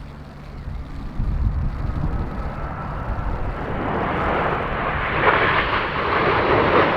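BAE Systems Hawk T1 jets flying past, their jet noise swelling steadily as they close in and loudest near the end.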